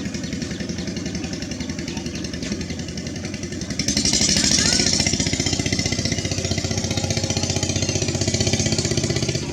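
An engine running with a fast, even chugging beat, getting louder and brighter about four seconds in.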